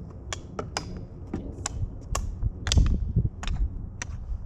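Longboarders' slide-glove pucks knocked together in a group: a dozen or so sharp plastic clacks at an uneven pace, over a low rumble that swells near the middle.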